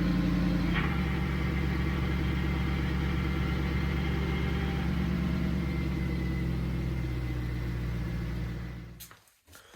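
Jeep drivetrain running in gear on jack stands with the front driveshaft spinning: a steady engine hum with a faint, steady high whine, the whine traced to the NP231 transfer case. The sound dies away about nine seconds in, followed by a few clicks.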